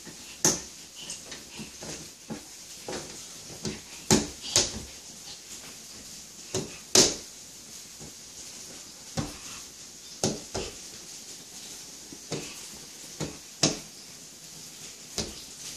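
Small hands slapping and patting the glass panes of a patio door, giving irregular sharp knocks, about one a second. The loudest come about half a second in and about seven seconds in.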